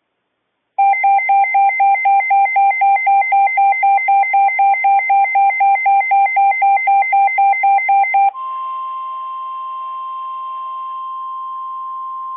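Emergency alert tones: a pulsing electronic alarm with two pitches, beeping about four times a second for about seven seconds. It switches to a steady single tone just above 1 kHz, the NOAA Weather Radio 1050 Hz warning alarm tone that signals a warning broadcast.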